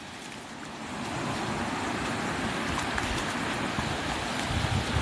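Surf breaking and washing up the sand, a steady hiss of water that swells over the first second, with low wind rumble on the microphone toward the end.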